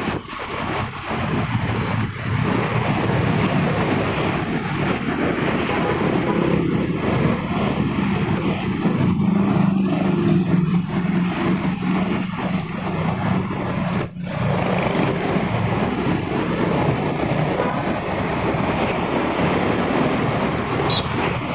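Steady engine and road noise of a vehicle on the move, with a brief dip about fourteen seconds in.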